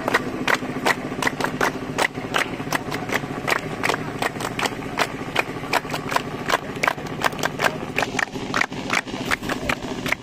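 A line of people clapping their hands in a steady patter of sharp claps, about four a second and not in unison, over a steady low hum.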